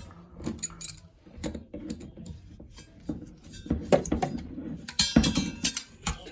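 Irregular metallic clinks and knocks from hand tools and bolts on the fan's sheet-metal housing as the exhaust fan motor's mounting bolts are being removed, the loudest around four and five seconds in.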